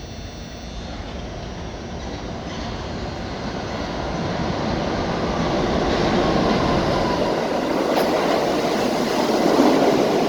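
R68 subway train coming into the station, its wheel and track noise growing steadily louder, with a faint wheel squeal about six seconds in.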